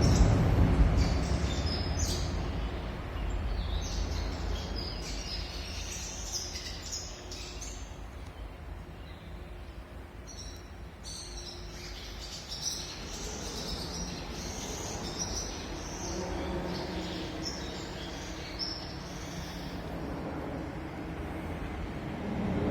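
Warblers chirping, with many short, high calls scattered throughout, over a low, steady background rumble that is loudest in the first couple of seconds.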